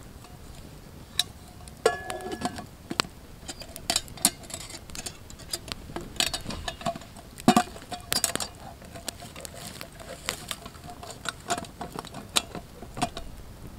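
Stainless steel camping pot and lid clinking, tapping and scraping as they are handled, with a short metallic ring about two seconds in. A wood campfire crackles in sharp irregular pops throughout.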